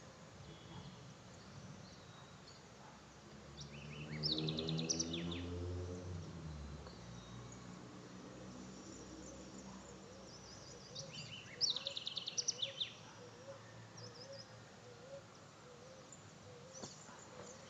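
A songbird singing short phrases of rapid repeated high notes, twice: about four seconds in and again around twelve seconds in, over a faint steady outdoor background. A low hum swells and fades between about four and seven seconds in.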